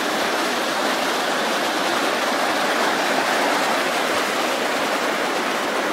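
Steady rush of the Little Qualicum River's whitewater rapids.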